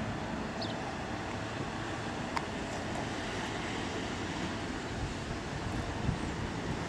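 Steady outdoor background noise, an even hiss with no distinct source, with a faint click about two and a half seconds in.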